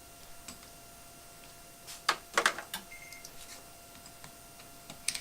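Sharp clicks and clacks of plastic parts being pried off a soft-serve freezer's dispensing head: a cluster of clicks about two seconds in and another click near the end, as the star caps are popped off.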